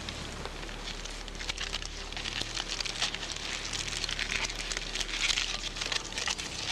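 Dense fine crackling and crinkling from a campfire with grayling baking in aluminium foil in the embers, growing busier about two seconds in.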